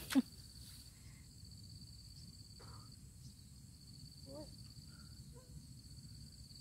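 Insects trilling steadily on one high-pitched note over low outdoor background noise, with a short voice sound at the very start and faint snatches of distant voices.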